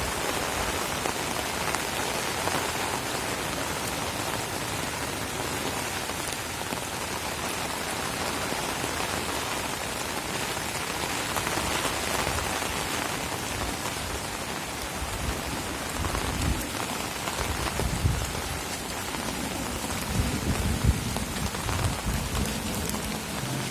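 Heavy rain falling steadily, an even hiss of many drops. Irregular low rumbles come in over the last several seconds.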